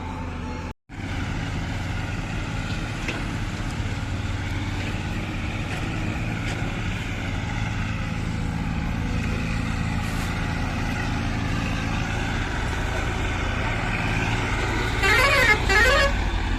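Heavy vehicle engine running steadily, cutting out completely for a moment about a second in. Near the end a vehicle horn plays a warbling, rising-and-falling tune for about a second.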